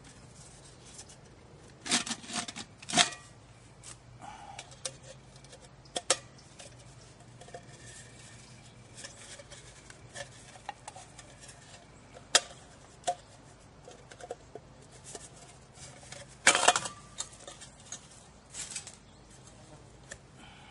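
Rustling and light metal clicks and clinks of a homemade alcohol stove kit being unpacked and handled by hand, in scattered bursts, the loudest about two, three, six and sixteen and a half seconds in.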